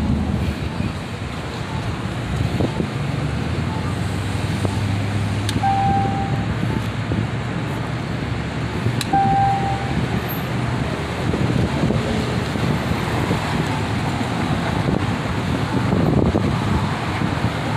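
Wind buffeting the phone's microphone over steady street-traffic noise. Twice, about three and a half seconds apart, a short electronic beep sounds, each just after a faint click.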